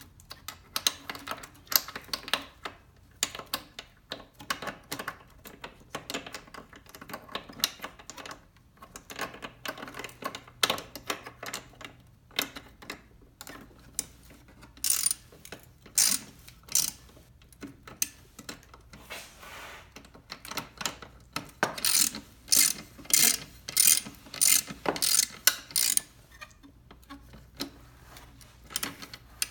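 Hand tools at work on an ATV: a ratchet wrench clicking, with metal clinks and knocks. Near the end comes a quick run of about a dozen loud clicks, roughly three a second.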